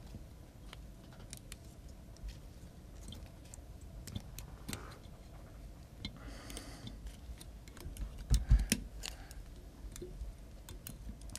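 Scattered light clicks and ticks from hands working at a fly-tying vise, wrapping thread from a bobbin over feathers on a hook, with a few low thumps about eight seconds in.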